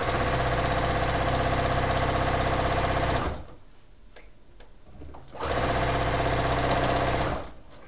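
Electric domestic sewing machine stitching a seam through patchwork pieces, running steadily for about three seconds, stopping, then running again for about two seconds.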